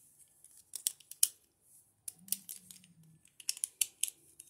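Light, sharp clicks and ticks of Beyblade spinning-top parts, plastic and metal, being handled and fitted together. The clicks come scattered, with a quick cluster about three and a half seconds in.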